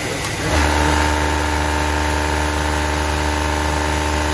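Juki MF-7923 three-needle coverstitch cylinder-bed industrial sewing machine starting up about half a second in and then running steadily at speed on its direct-drive motor, sewing a T-shirt's bottom hem in an automated hemming cycle.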